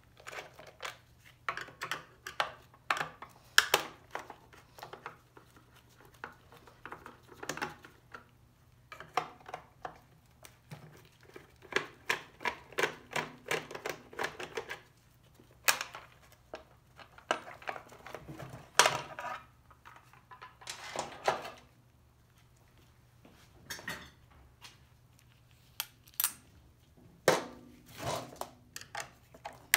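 Irregular clicks, taps and clatters of a screwdriver and plastic housing parts while a 33cc chainsaw's top cover is unscrewed and lifted off on a metal workbench.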